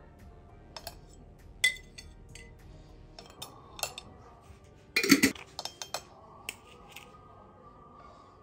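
Metal spoon clinking and knocking against a small glazed ceramic pot, with a run of sharp separate clinks and a heavier cluster of knocks about five seconds in.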